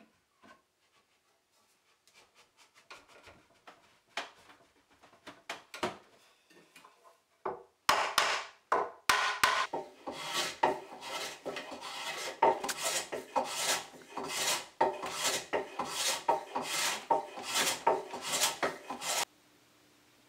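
Wooden hand plane being pushed along the edge of a yellow pine board, a rasping stroke about twice a second. Light, faint scrapes come first; the strokes then turn loud and steady and cut off suddenly near the end.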